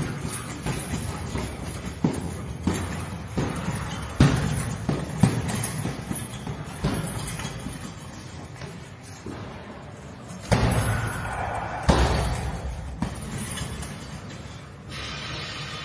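Gloved punches and kicks striking a heavy punching bag: a series of irregular thuds, with two heavier hits about ten and twelve seconds in.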